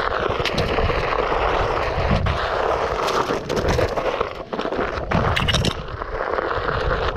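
Onewheel Pint's tyre rolling over a dirt trail, with a steady rumble and many short cracks and snaps of twigs and debris, thickest about three to six seconds in.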